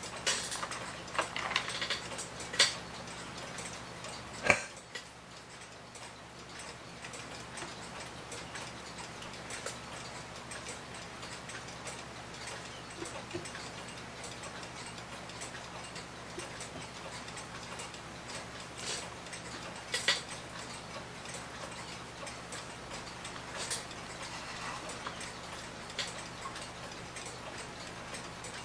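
Early-1900s New Haven Clock Co. pendulum mantel clock ticking steadily, its beat just set even. A few louder knocks in the first few seconds, the loudest about four seconds in, and another about twenty seconds in.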